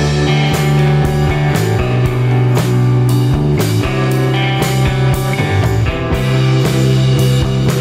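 Background rock music with guitar and drums keeping a steady beat.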